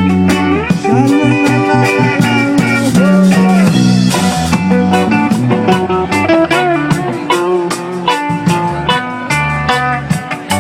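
Live rock band playing an instrumental passage: a guitar lead with bending notes over bass and drums, with a steady beat of drum and cymbal hits.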